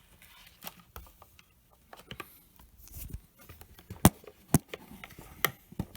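Handling noise: a scattering of light clicks and knocks, with a few sharper clicks in the second half.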